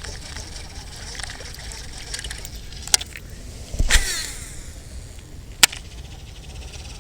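A cast with a Daiwa Tatula SV TW 103 baitcasting reel: a swish about four seconds in, then the spool whirring out line with its pitch falling as it slows. There is a sharp click just before the cast and another about a second and a half after it, over steady wind noise on the microphone.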